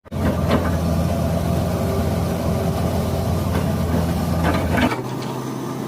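Hitachi excavator's diesel engine running steadily, with a few short knocks. About five seconds in, the deepest rumble drops away, leaving a steadier hum.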